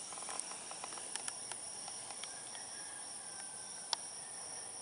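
Faint steady background hiss with a thin, constant high-pitched whine, broken by a few soft clicks and one sharper click about four seconds in.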